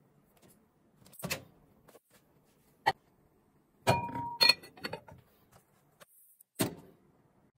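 Microwave oven door handled: it clicks open, a lidded glass bowl is set down inside with a clatter and a brief glassy ring, and the door is pushed shut with a thump near the end.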